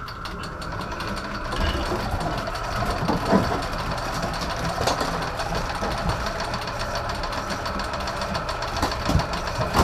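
Electric fishing reel motor running, winding in line with a steady hum, over the low, knocking run of the boat's idling engine; it grows louder about a second in.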